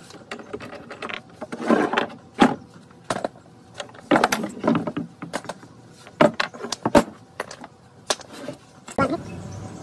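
Pipe clamps being loosened and lifted off a glued-up wooden tabletop: an irregular string of metal clanks, scrapes and wooden knocks as the clamps and wooden blocks are handled against the planks and the bench.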